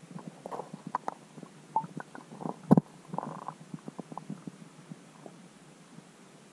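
Irregular soft clicks and knocks heard underwater through a camera housing. They come close together in the first half, with one sharp knock a little under three seconds in.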